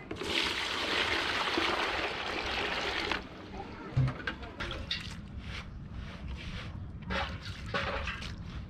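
Water poured from a metal jug into a plastic tub, a steady splashing stream that stops after about three seconds, followed a second later by a single sharp knock.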